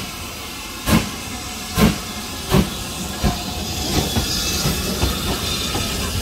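BR Standard Class 5 steam locomotive No. 73082 starting away under steam: sharp exhaust chuffs about a second apart that quicken to about three a second, the first four the loudest, over a steady hiss of steam.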